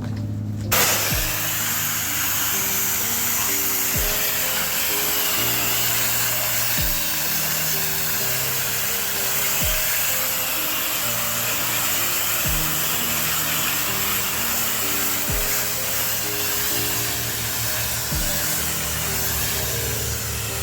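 Background music with a slow, steady beat over a loud, steady hiss of water spraying from a pressure washer; the hiss starts abruptly just under a second in.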